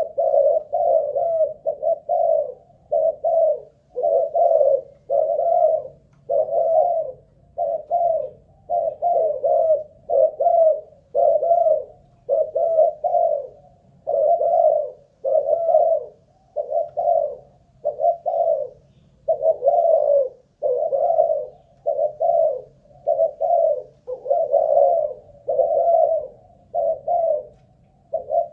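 Spotted dove (Malaysian-line cu gáy) cooing without a break, a long run of short coo notes at about one to two a second.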